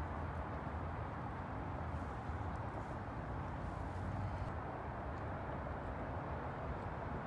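Steady outdoor background noise: an even rushing hiss with a low hum beneath it and a few faint clicks, with no distinct event standing out.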